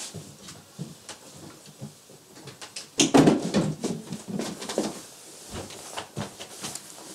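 Someone moving about a small room and rummaging for a hat: scattered knocks and rustling, with a louder stretch of handling noise about three seconds in.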